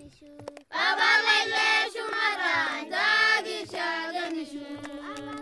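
A group of Maasai children singing together in high voices. The singing starts loud about a second in and drops to a softer level near the end.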